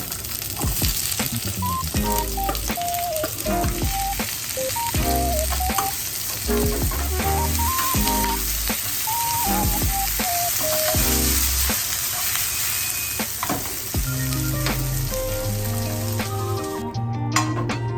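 Food sizzling in a hot frying pan: a steady frying hiss that cuts off suddenly about a second before the end, with background music playing underneath.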